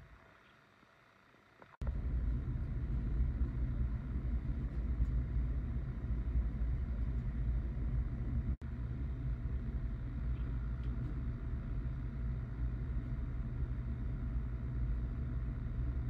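A steady low rumble that starts abruptly about two seconds in and drops out for a moment about halfway through.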